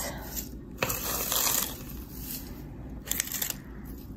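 Crinkle-cut paper shred packing filler rustling and crunching as hands dig through it in a box. It is busiest in the first second and a half, with a few sharp crackles later on.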